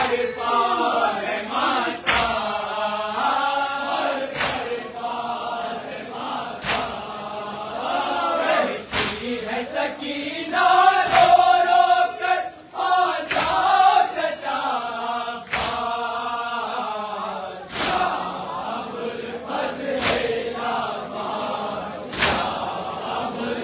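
A crowd of men chanting a nauha, a Shia lament, together, with a sharp unison strike of chest-beating (matam) about every two seconds.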